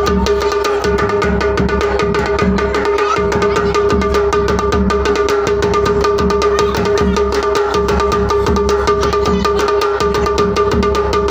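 Loud music with a fast, even drum beat over a steady held note, playing throughout.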